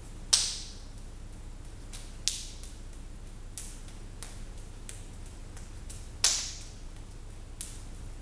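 Sharp slaps of hands and forearms striking and blocking in a two-person Wing Chun drill. There are three loud slaps, just after the start, about two seconds in and about six seconds in, with lighter ones between, over a steady low room hum.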